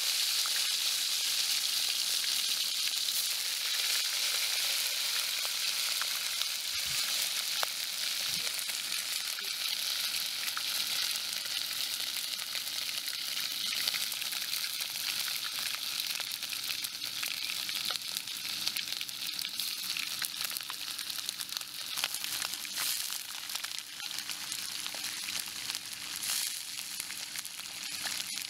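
Small fish deep-frying in hot oil in a wok: a steady sizzle with fine crackles and pops, slowly softening as the frying settles.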